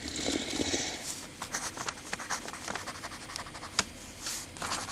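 Handling noise from a plastic mechanical pencil: a scatter of small clicks and brief rubbing and scratching sounds as it is turned over in the hands.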